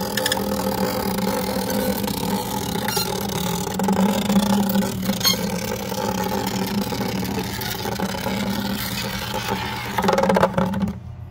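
A metal air-hose adapter driven by compressed air whirls at high speed around the bottom of a plastic bucket, making a steady high-revving buzz with rattling. Near the end it rattles louder for about a second, then the sound drops off sharply.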